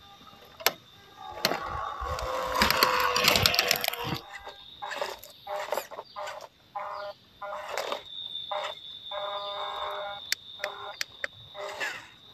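Scale RC crawler trucks crawling over dry leaves, twigs and rock, with a dense crunching rustle from about one and a half to four seconds in. Faint voices in the background later on.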